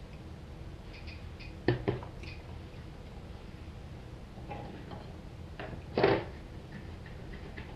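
Light handling sounds while a circuit board is desoldered with a soldering iron: two short knocks, about two seconds in and about six seconds in, and a few faint ticks over a steady low hum.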